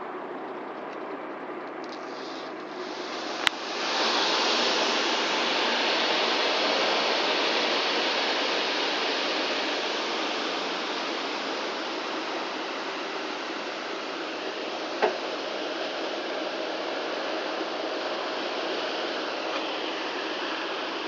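Granular fertiliser pouring from a big bag onto the mesh screen of a spreader hopper: a steady hiss. It starts abruptly after a sharp click about three and a half seconds in, as the bag is cut open.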